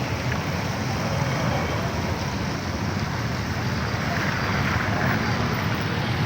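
Steady wash of traffic driving through floodwater on a road, engine noise mixed with a rushing of water.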